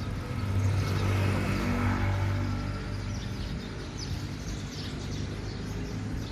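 A motor vehicle's engine passing, a low humming drone that swells about a second in and then fades. Birds chirp over it.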